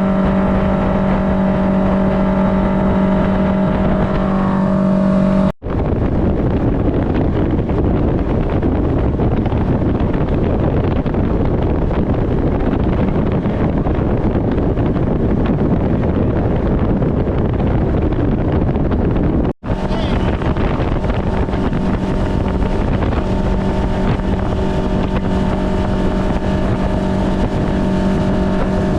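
Fishing boat's motor running steadily under way, a constant hum with wind and water rush. It cuts off abruptly about five seconds in, leaving mostly rushing noise, then the steady hum comes back suddenly about twenty seconds in.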